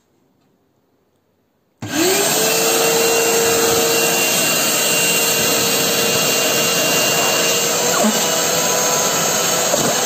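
Near silence, then about two seconds in a shop vac switches on: its motor spins up quickly to a steady whine over a loud rush of air. It runs on while a nylon rain jacket is drawn into its intake.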